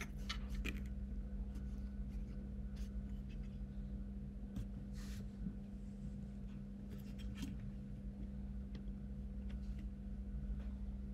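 Light handling noise: scattered small clicks and rubbing, with a brief rustle about five seconds in, over a steady low hum.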